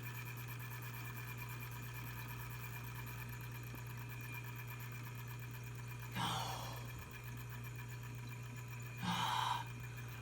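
Refrigerator with a failing evaporator fan motor humming steadily, with several thin steady tones over a low hum. Two short breathy sighs come about six and nine seconds in.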